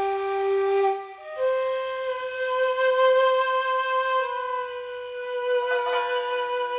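Slow music on a single wind instrument playing long held notes: one note breaks off about a second in, then a long higher note is held.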